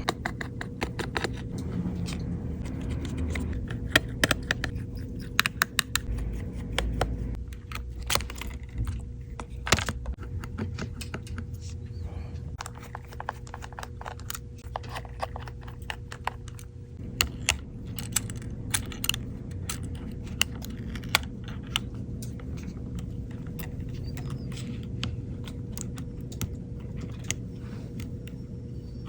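Irregular small clicks and taps of repair tools and tiny parts on an iPhone being worked on, over a steady low hum.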